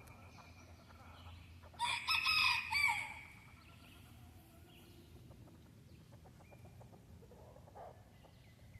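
A rooster crowing once, about two seconds in, the crow lasting just over a second.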